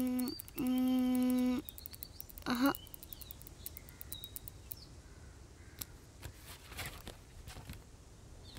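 A child's voice calling out twice in long, drawn-out notes held at one pitch, then a short spoken sound about two and a half seconds in. After that there is quiet garden ambience with faint bird chirps.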